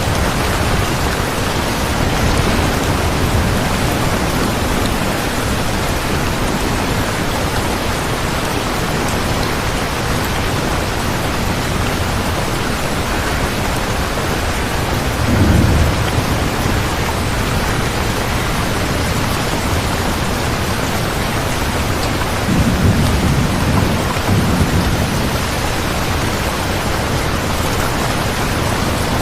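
Steady heavy rain, with low rumbles of thunder about halfway through and twice more near the end.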